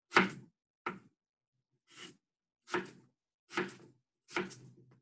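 Kitchen knife chopping through a cucumber onto a cutting board: six chops, about one every 0.8 seconds, each a sharp tap with a short tail.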